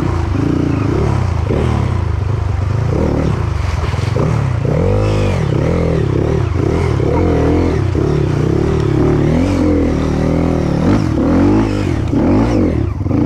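Enduro dirt bike engine being ridden hard through a shallow rocky stream and onto a trail, its revs rising and falling again and again as the throttle is worked.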